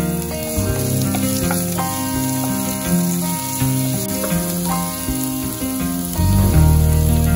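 Chopped onions, green chillies and curry leaves sizzling in hot oil in a non-stick pan while a spatula stirs them. Background music plays over it.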